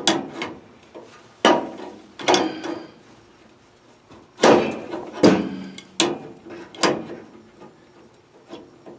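Hand tools clanking and scraping against the boiler's drain plumbing: about seven sharp knocks at irregular intervals, each ringing briefly, as a leaking hose connection is worked on.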